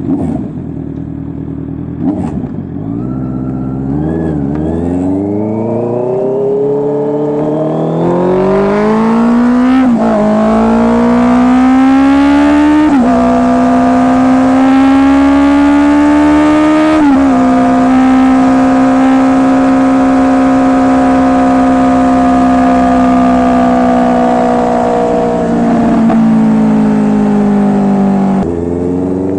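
Honda CB650R's inline-four engine through an SC Project full exhaust system, accelerating through the gears: the pitch climbs and dips briefly at three upshifts. It then holds a steady cruise and eases off near the end.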